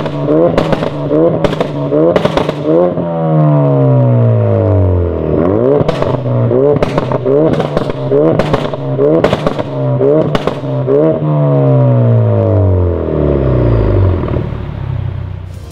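Ford Focus RS Mk3's 2.3-litre turbocharged four-cylinder, breathing through a Supersprint full exhaust with its valve open, revved stationary in quick blips about every 0.7 seconds, each with a sharp crack from the exhaust. Twice the revs hang and fall away slowly, and near the end they drop back to a low idle.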